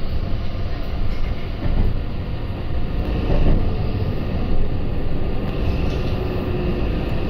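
Interior running noise of a Meitetsu electric train car: a steady rumble of wheels on rail.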